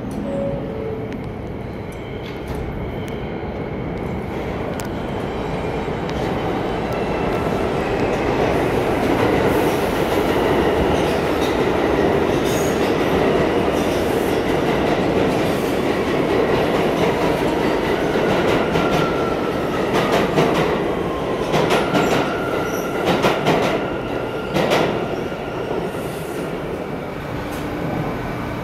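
R160 New York subway train pulling out of the station, its motor and wheel noise building over the first several seconds into a loud steady rumble. In the second half come a run of sharp rail-joint clicks and a thin wheel squeal as the cars pass.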